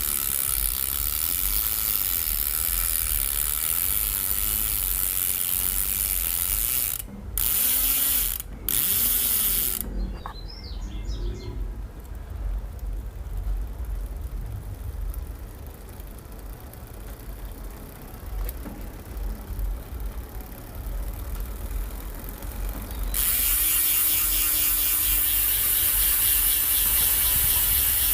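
Koozer XM490 rear hub's freehub pawls ratcheting in a fast, loud buzz as the wheel freewheels. The buzz breaks off briefly twice, dies down to a faint ticking in the middle, then comes back loud near the end.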